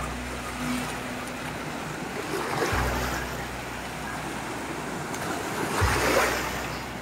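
Ocean surf washing onto a beach, with two waves breaking and swelling louder, about a third of the way in and again near the end, over a low rumble.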